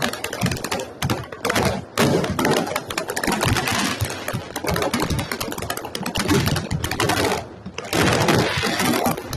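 Fireworks crackling and popping in rapid, dense volleys of sharp reports, with brief lulls about a second in, about two seconds in and near the end.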